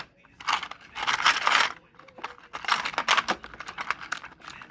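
Small hard parts being handled: a scraping, clinking rustle from about half a second to two seconds in, then a run of light clicks and taps.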